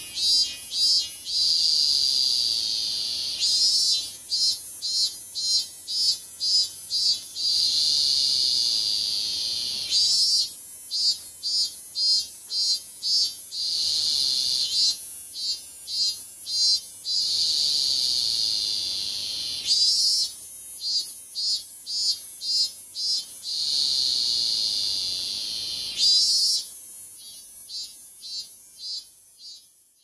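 A cicada singing loud and high-pitched in repeating phrases. Runs of evenly pulsed notes alternate with a long steady buzz, the cycle coming round every six or seven seconds, and the song trails off near the end.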